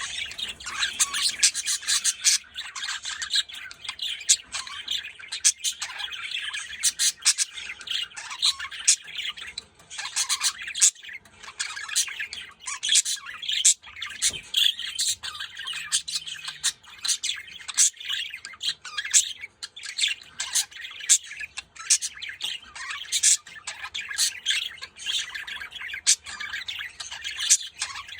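Budgerigars chattering without a break: a dense run of warbling and chirping, cut through by many short, sharp calls.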